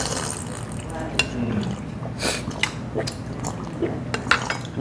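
Tableware clinks and taps at a dining table: dishes and cutlery knocking several times, over low voices.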